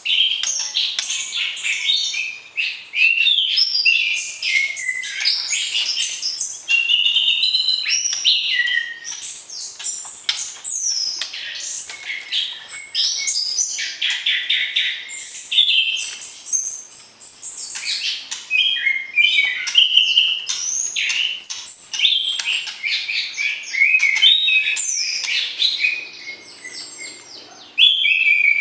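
White-rumped shama (murai batu) singing without a break: a rapid, varied string of gliding whistles, trills and quick chattering notes.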